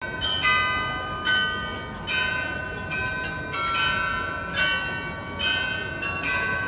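The Munich Glockenspiel's tower bells playing a melody: a bell struck about every half second to second, at different pitches, each note ringing on under the next.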